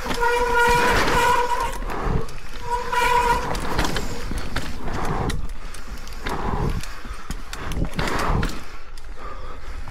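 Mountain bike descending a dirt trail: tyre noise and the bike rattling over bumps, with two bouts of steady squeal from the SRAM Code R disc brakes under braking, a long one about a second in and a shorter one near three seconds.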